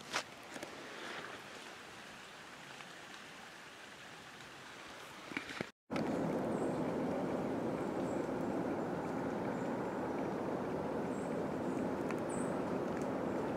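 Outdoor ambient noise: a faint hiss with a few light clicks, then, after an abrupt cut about six seconds in, a louder steady rushing noise with a few faint high chirps.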